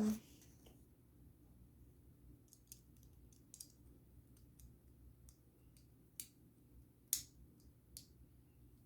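Faint, scattered clicks and taps of plastic Lego pieces being handled and pressed together, with sharper clicks about six and seven seconds in.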